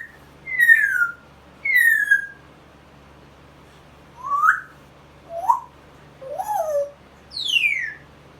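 A pet parrot whistling: about seven short sliding whistles, some rising and some falling in pitch, with a pause of a couple of seconds near the middle; the last one is a long fall from high to lower.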